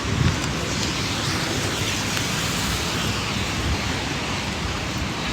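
Steady hiss of falling rain, with wind rumbling on the microphone.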